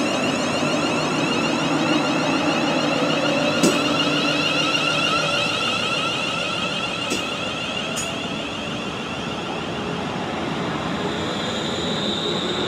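London Northwestern Railway Class 350 Desiro electric multiple unit moving along the platform, its traction motors giving a steady whine over the wheel and rail noise. Three sharp clicks sound about 3.5, 7 and 8 seconds in, and a higher whine rises near the end.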